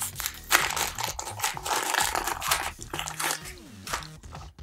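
A foil Pokémon booster pack crinkling and tearing as it is opened by hand, dense and crackly for the first few seconds, then softer.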